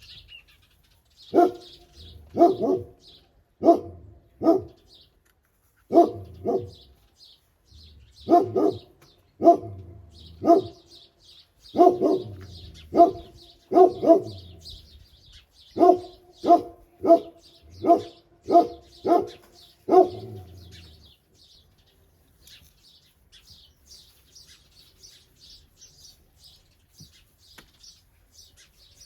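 A dog barks about two dozen times in short runs of two to four barks, then stops about two-thirds of the way through. Birds chirp faintly throughout and are heard alone at the end.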